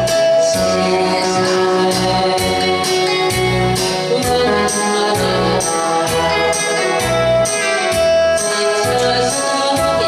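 A woman singing into an amplified microphone over a recorded backing track with a steady beat and bass.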